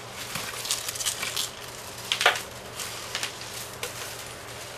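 Plastic packing-strap strips rustling and clicking against each other as they are handled and lined up, with one sharper scrape about two seconds in.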